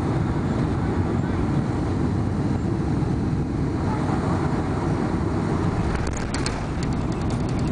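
Jet airliner rolling on the runway after landing, heard from inside the cabin: a loud, steady low rumble of engines and wheels. A few short rattles come about six seconds in.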